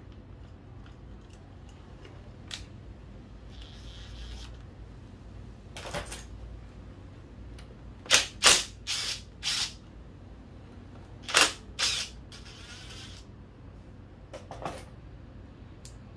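Hand tools and metal engine parts clinking and knocking: a string of short sharp clacks, loudest in a cluster about eight to ten seconds in and again around eleven to twelve seconds, over a low steady hum.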